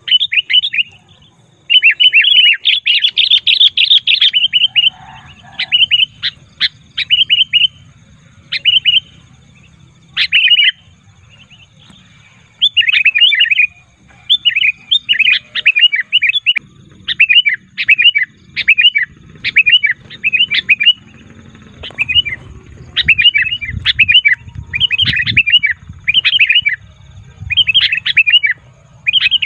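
Sooty-headed bulbul (kutilang) calling noisily: short, bright chattering phrases repeated roughly once a second, with one longer, denser bout about two to four seconds in. A low rumble runs underneath and grows louder past twenty seconds in.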